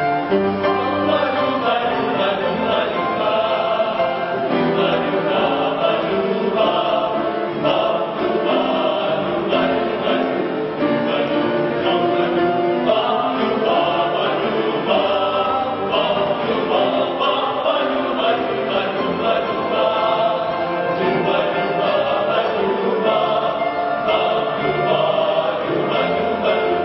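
A choir singing in a gospel or Christian style.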